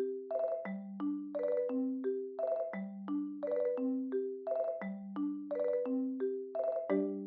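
Background music: a bouncy mallet-percussion tune, like a marimba, playing a repeating pattern of low notes and short chords that dies away near the end.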